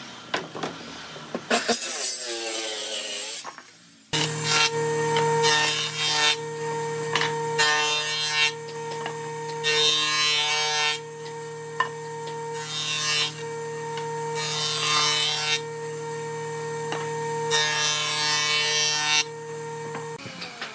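A jointer runs with a steady motor hum while a board is fed edge-first over its spinning cutterhead. Its cutting noise swells in about five separate passes a couple of seconds apart, and the machine stops shortly before the end.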